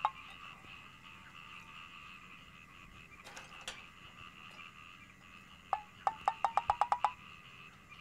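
Fish sauce glugging out of a bottle into a small bowl: a quick run of glugs, about ten a second, climbing slightly in pitch as the bowl fills, heard briefly at the start and again for about a second and a half near the end.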